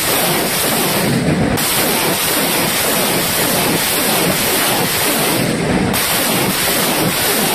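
BM-21 Grad multiple rocket launcher firing a salvo: a continuous loud roar of 122 mm rockets launching from the truck-mounted tubes.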